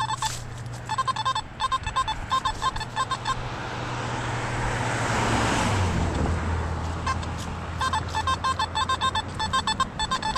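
Metal detector giving rapid repeated target beeps in two runs, picking up a signal nearly everywhere it is swept. Between the runs a car passes, its noise rising and falling about five seconds in.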